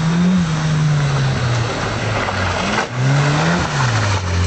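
Mitsubishi Lancer rally car's engine at high revs as it passes close by. The engine note rises and falls twice as the driver accelerates and lifts off.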